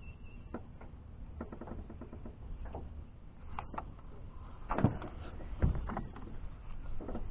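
Scattered knocks and taps of gear being handled in a jon boat, with two louder thumps about five seconds in, over a low steady rumble.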